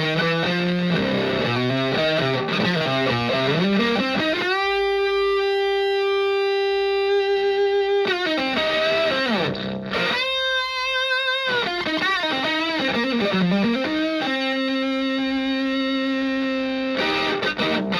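Electric guitar through a Tone Bender MKI-style fuzz pedal with its Fire (attack) control at full: a Stratocaster tuned to drop C played through a Twin Reverb-style valve amp. Moving fuzzed phrases break into long sustained notes about four seconds in, a higher, shorter one about ten seconds in, and a lower held note near the end.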